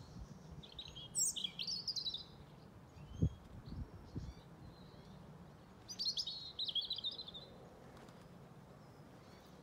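European robin singing: two short, high warbling phrases, one about a second in and another about six seconds in. A low thump comes between them, about three seconds in.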